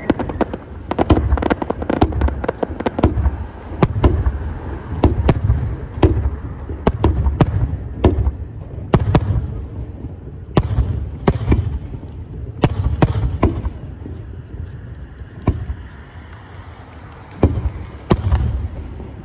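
Aerial firework shells bursting in quick succession, deep booms mixed with sharp cracks, several a second at times. The barrage eases off for a few seconds near the end, then picks up again.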